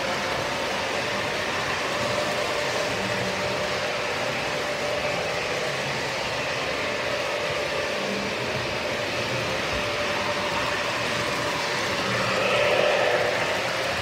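Model trains running on the layout: electric motors whining steadily and wheels rolling on the rails, with a swell near the end as a train passes close by.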